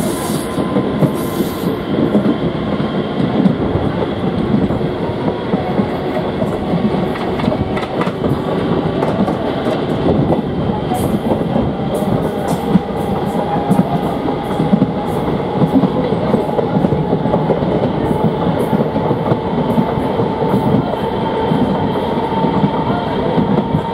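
Train cars rolling past, a steady heavy rumble with wheels clicking over the rail joints, the clicks thicker in the second half.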